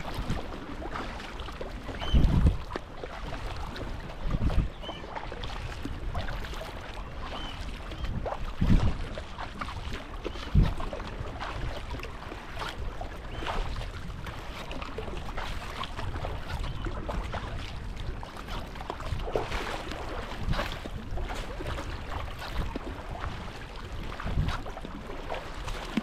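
Sea kayak being paddled on open sea: steady sloshing and splashing of water around the hull and paddle blades, with wind on the microphone and a few short low thumps.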